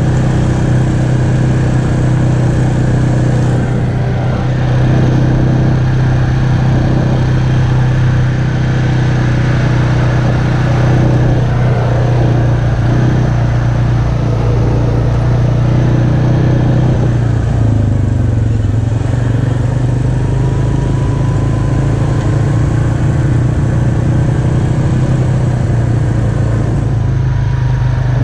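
ATV engine running steadily at low cruising speed, heard from on board the quad. The engine note dips briefly a little past halfway, then picks up again.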